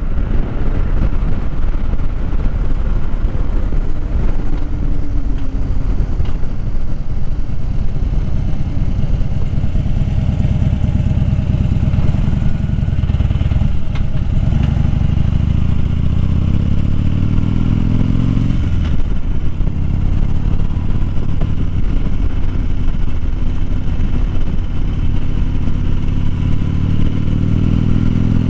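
Harley-Davidson Dyna Fat Bob's Twin Cam V-twin running under way at road speed. It rises in pitch as it accelerates, drops sharply twice around the middle as it shifts up, then climbs again near the end.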